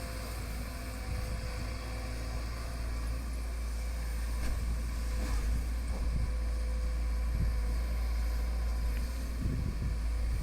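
Sumitomo SH210 excavator's diesel engine running steadily: a low, even drone with a faint steady whine above it.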